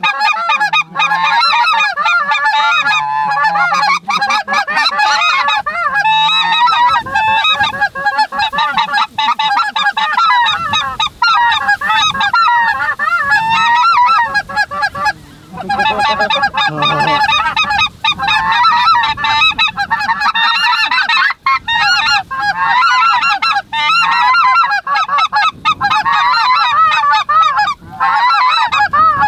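A large flock of geese calling in flight overhead: a dense, continuous chorus of many overlapping honks and yelps, thinning briefly about halfway through.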